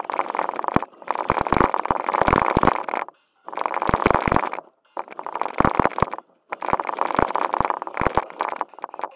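Onboard sound of a JJRC Q76 4WD RC stunt car's electric motors and gearbox whirring in bursts of about a second as the throttle is worked on and off, with rattles and knocks from the chassis jolting over rough concrete and gravel.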